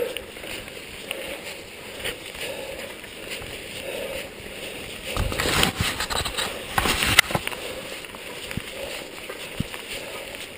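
Mountain bike rolling over a gravel and dirt track: steady tyre noise with rattling from the bike, and a run of louder clattering knocks over bumps a little past halfway.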